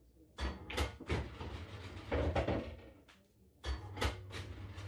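Pool shot on a pub-style pool table: a cue strikes the cue ball, which clicks sharply into an object ball; the ball drops into a pocket and rolls through the table's ball return. A few more knocks follow near the end.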